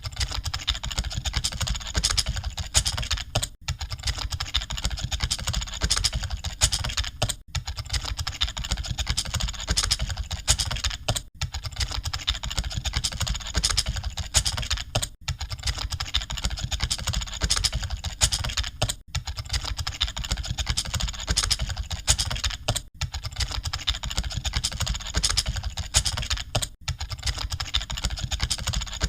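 Dense, continuous clatter of computer keyboards being typed on rapidly, as of many candidates typing at once in an exam hall. A brief dip in the clicking recurs about every four seconds.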